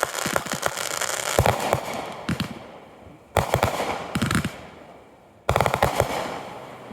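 Fireworks bursting: a dense run of rapid cracks and bangs that fades out, then two more sudden volleys, about three and a half seconds in and again two seconds later, each crackling and dying away.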